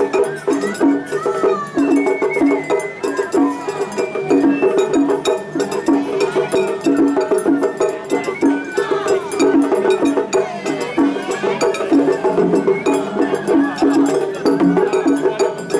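Japanese festival hayashi music: a bamboo flute melody over a steady beat of drums and a clanging hand gong, about two to three strokes a second, with voices mixed in.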